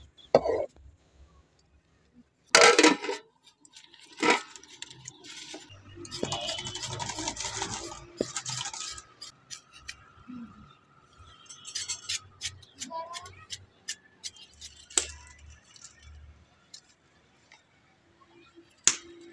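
Kitchen handling sounds: a steel ladle clinking and scraping in an aluminium pot, then a knife and peeler working on fruit and vegetables over a plastic basket. The sound is scattered sharp clicks and knocks, with a stretch of scraping in the middle.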